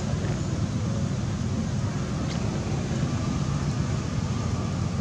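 A steady low rumble, even in loudness throughout.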